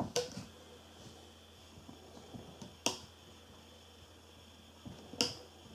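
Three small, sharp snaps, about two and a half seconds apart, as rubber loom bands are stretched over and let go onto the pegs of a plastic loom.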